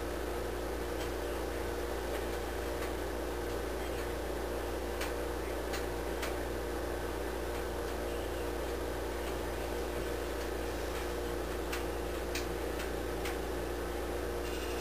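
A steady low hum with faint, irregular ticks every second or so.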